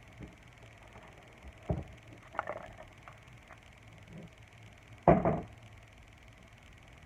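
A few scattered knocks and thumps of things being handled, the loudest about five seconds in.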